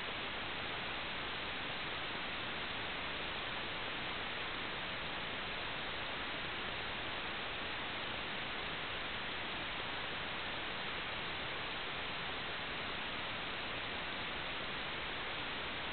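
Steady, unchanging hiss of radio static, the empty audio channel of an analog video downlink with no real sound on it.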